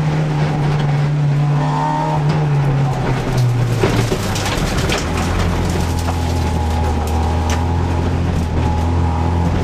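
Rally car engine heard from inside the cabin, held at steady revs, then the revs fall about three seconds in and it settles into lower steady running. A few sharp knocks and rattles from the car come through around the change and later.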